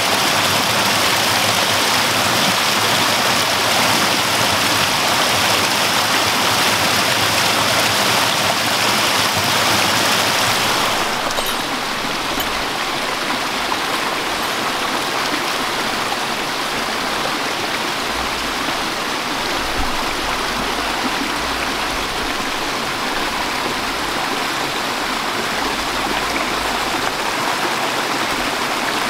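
Small creek waterfall pouring over logs and rocks, a steady rush of water. About eleven seconds in it changes abruptly to a softer, lower rush of the shallow stream flowing over stones.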